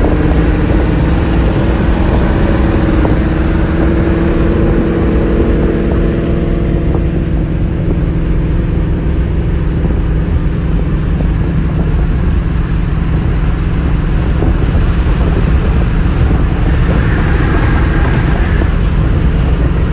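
Steady highway driving noise of cars at speed, road and engine rumble, as an old Ford Mustang runs in the next lane.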